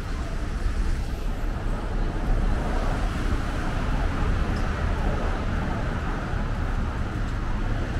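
Steady outdoor city noise: a constant low rumble of road traffic with a hiss over it, with no distinct single event standing out.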